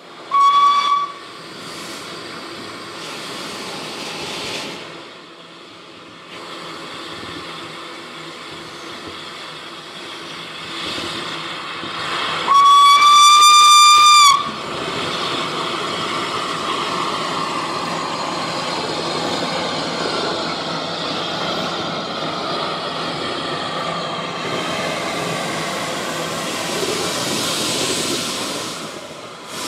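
Narrow-gauge steam locomotive: a short steam-whistle blast about half a second in, then a longer, louder whistle blast about halfway through. Steam hisses in between and after, with steam blowing from the cylinder drain cocks, as the engine gets under way.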